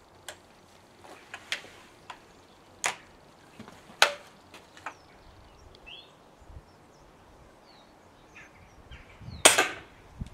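A .22 air rifle firing a Sussex Sabo sabot round: one sharp shot about nine and a half seconds in, the loudest sound here. Before it come several small clicks and knocks as the loaded rifle is handled and brought up to aim.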